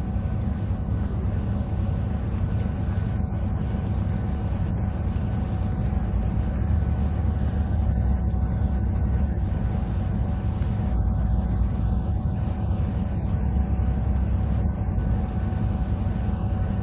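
Steady low rumble of the Tezgam Express passenger train, continuous and even, with no sudden knocks.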